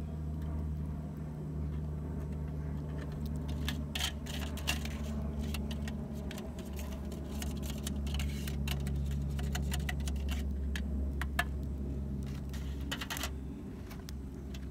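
Metal tongs, a metal tray and a wire grill basket clinking and scraping together as marinated pork is slid onto the basket and the basket is closed: scattered light metallic clicks, thickest in the middle, over a steady low hum.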